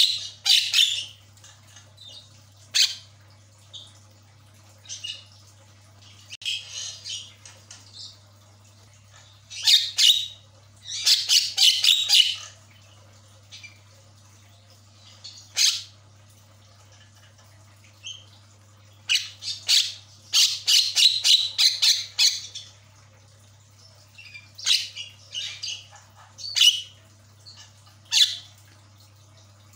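Javan myna calling in harsh, rapid bursts of chattering notes, in clusters a second or two long with short pauses between them, the longest runs about ten seconds in and again around twenty seconds in.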